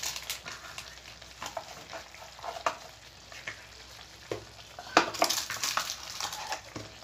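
Chicken in masala frying in a steel pan with a low sizzle, and a metal spoon scraping and clinking against the pan in scattered strokes, loudest about five seconds in.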